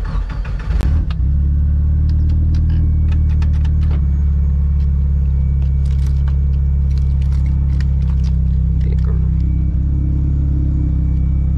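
Nissan SR20 inline-four engine in a 1983 Toyota Corolla wagon, heard from inside the cabin, starting up and settling into a steady low idle about a second in. Small clicks and rustling over the idle.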